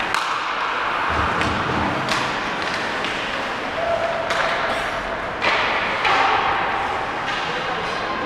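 Ice hockey play: several sharp knocks and thuds of puck and sticks striking the boards and glass over a steady rink noise, the loudest knock about five and a half seconds in.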